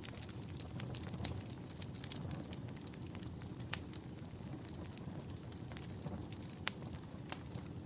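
Wood fire in a fireplace crackling, with a steady low rustle of flames and scattered sharp pops, two of them louder: one a little after a third of the way in, one near the end.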